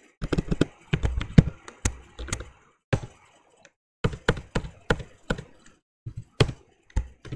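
Typing on a computer keyboard: a quick, irregular run of keystroke clicks, pausing for about a second in the middle before the typing resumes.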